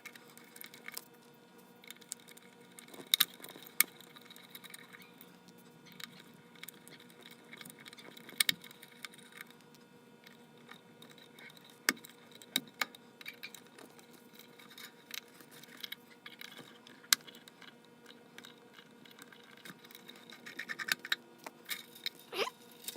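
Scattered small metallic clicks, taps and jingles of mandolin hardware being handled and unfastened, as the tailpiece and strings are taken off. A short downward-sliding tone comes near the end.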